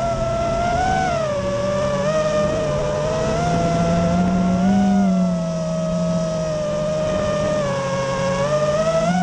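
An FPV quadcopter's brushless motors and propellers whining in flight, heard from the camera mounted on the drone. The whine holds several pitches at once that drift up and down with the throttle, swelling briefly about a second in and again around five seconds.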